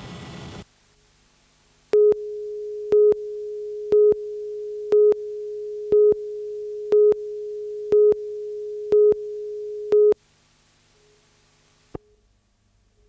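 Videotape countdown leader: a steady mid-pitched tone with a louder beep on each second, nine beeps in all. The tone then stops, and a single click follows about two seconds later.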